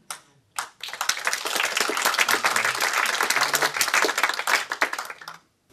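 Cinema audience applauding, starting about half a second in and stopping suddenly near the end.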